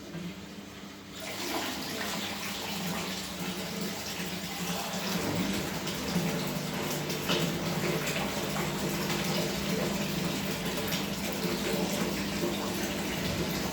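Samsung washing machine taking in water: the rush of water starts about a second in and runs on steadily, over a low hum that grows stronger about five seconds in.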